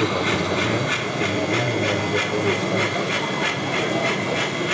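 HO scale model steam train running: ore cars and a small steam locomotive, with a steady rhythmic chuffing of about five beats a second over a continuous hiss.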